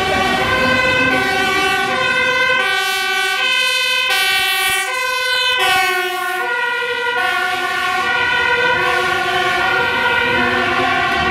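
Two-tone siren of a Dutch fire brigade Volkswagen Transporter van, alternating steadily between a high and a low note, its pitch dropping about halfway through as the van passes close by.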